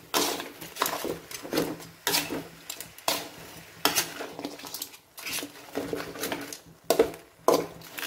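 A metal spatula scrapes and knocks around a metal kadai, stirring and frying crab pieces with onions and masala powder. There are about a dozen strokes, a little more than one a second.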